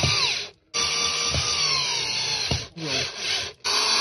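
Cordless drill-driver running in bursts, its whine rising and falling as it drives screws through a sheet-metal flap into a wooden frame, with three short breaks between runs.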